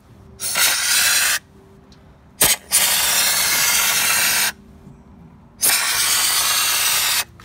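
Compressed-air underbody spray gun set to about 30 psi, spraying warmed Waxoyl rustproofing in three hissing bursts, each one to two seconds long, as the trigger is squeezed and released. A short sharp click comes just before the second burst.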